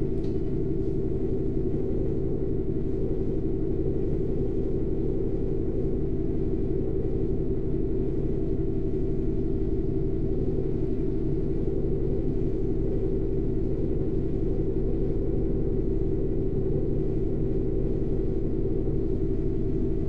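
Alexander Dennis Enviro 400 Trident double-decker bus heard from the upper deck: the engine and drivetrain make a steady low drone with a humming note that holds one pitch, without revving up or down.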